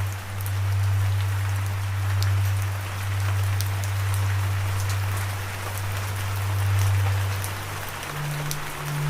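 Steady rain with scattered drop ticks, over a loud low sustained drone from background music that steps up in pitch near the end.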